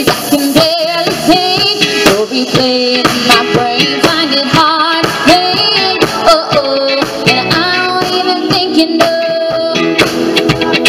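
Live pop-rock band playing loud through a PA: drum kit, electric bass and keyboard with a steady beat, and a woman singing a melody over it.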